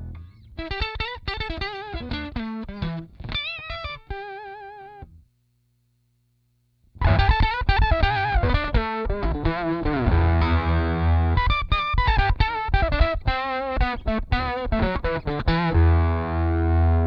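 Electric guitar played through the Stomp Audio Labs Octopus analog octave pedal, which adds octave-up and octave-down voices to single-note lines. Short phrases with vibrato break off into a sudden silence about five seconds in. A faster lead run with slides follows, ending on a sustained low note with heavy bass.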